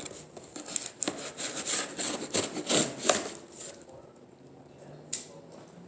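A blade sawing and scraping through the cardboard and tape of a speaker box, a run of quick strokes for the first few seconds, then quieter, with one sharp click about five seconds in.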